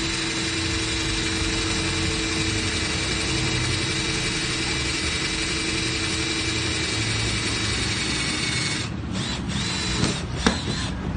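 Cordless drill boring through a metal flat bar, its motor running steadily under load. About nine seconds in the drilling stops, followed by a few clicks and one sharp knock.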